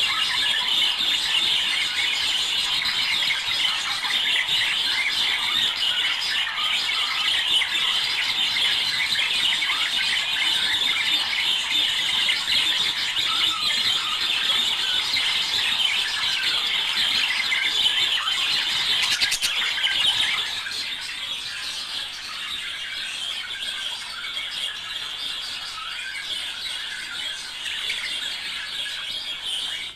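Budgerigars chattering and warbling continuously, a dense stream of high chirps and squeaky calls that gets somewhat quieter about two-thirds of the way through.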